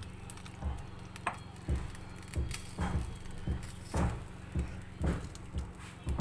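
Plastic spatula and fingers working pasta topping onto bread in a frying pan: soft knocks and taps about twice a second over a low steady hum.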